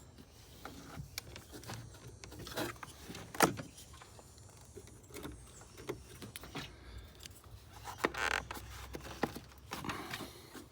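Scattered clicks, knocks and rattles of scope test leads and clips being handled and clipped onto a car battery, several sharper knocks standing out over a faint low hum.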